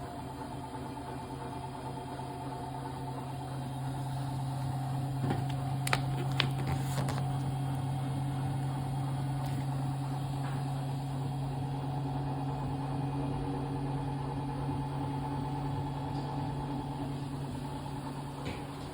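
Siemens WG44A2F0TR washing machine running with a steady low hum that grows a little louder over the first several seconds, then holds. A few short sharp clicks come about six seconds in.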